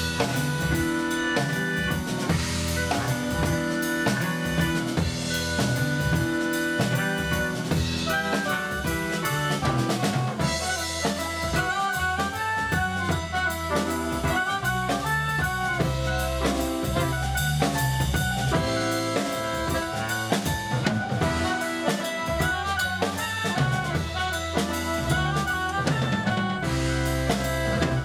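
Live band playing a Breton ridée dance tune in seven beats: soprano saxophone and clarinet carry the melody over drum kit and electric bass.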